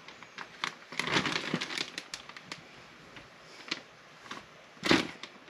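Clear plastic zip-top freezer bag crinkling as handfuls of blanched green beans are pushed into it, with a run of rustling and crackles about a second in and one louder crinkle near the end.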